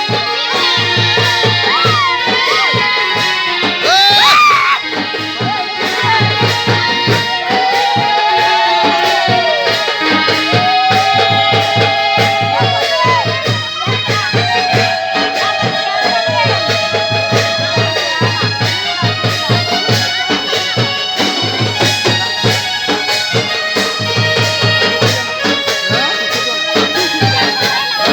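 Instrumental music with sustained, accordion-like chords over a steady low beat, with short chirping glides in the first few seconds.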